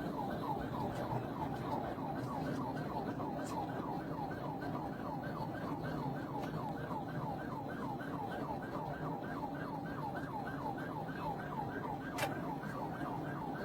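Police car siren in a fast yelp, its pitch sweeping about three times a second without a break, over the steady rumble of the cruiser's engine and tyres at highway speed.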